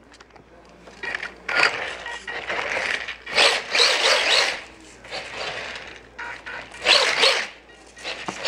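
Micro RC truck driving on a smooth floor: its small electric motor and tyres make a rasping, scrubbing noise in bursts, a long one of a few seconds in the first half and a shorter one near the end, as it accelerates and slides.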